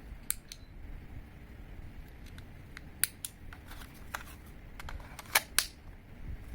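Scattered mechanical clicks from handling a Well P361 M1911A1 spring airsoft pistol, with a sharp click about three seconds in and two more close together near the end.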